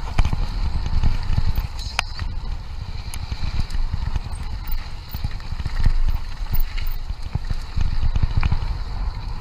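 Mountain bike descending fast on a gravel trail: tyres rumbling and crunching over the surface, with the bike rattling and clattering over bumps, over a heavy low buffeting of wind on the microphone.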